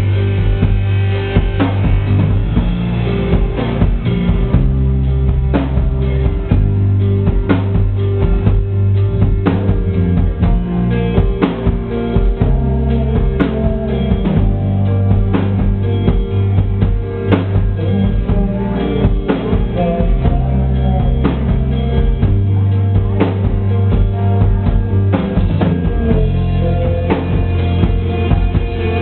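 Rock band playing live: a drum kit keeping a steady beat with kick drum, under bass and electric guitars. The sound is dull, with all the treble cut off.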